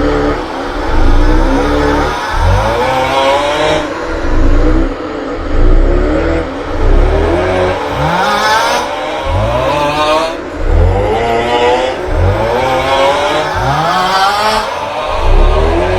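The 'aughhhh' snoring meme sound, a drawn-out, wavering snore-groan, looped over and over so the repeats overlap one another, with heavy, pulsing bass.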